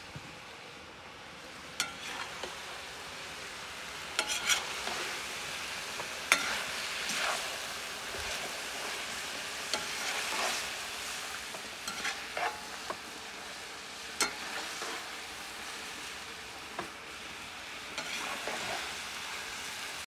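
Carrots and meat sizzling in oil in a kazan, frying for plov. The steady hiss swells now and then, with sharp pops scattered throughout.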